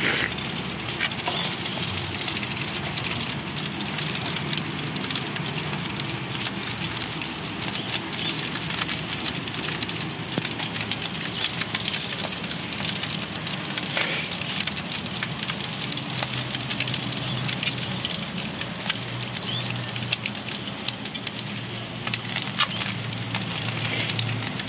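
Chicken wings in a sticky char siu marinade sizzling and crackling on a hot electric grill: a dense, steady crackle with a few sharper pops, about halfway through and near the end, over a low steady hum.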